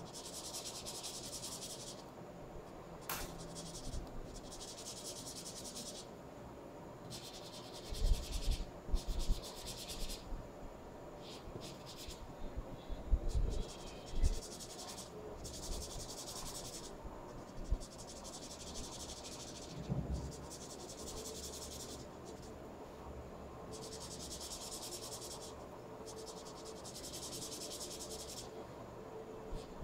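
Felt-tip marker scratching on paper in bursts of rapid back-and-forth colouring strokes, each burst a second or two long with short pauses between, and a few dull knocks.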